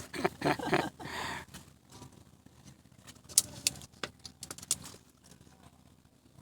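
Brief voice-like sound at the start, then a handful of scattered sharp clicks and ticks.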